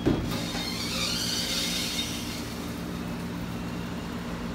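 Road force wheel balancer spinning a large truck tire on its rim, a steady mechanical run with a low hum and a hiss, started with a click at the outset. This is a plain spin to seat the tire beads before the road force test.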